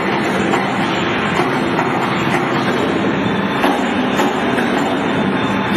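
Steady, loud mechanical noise of heavy workshop machinery, with a few faint light knocks.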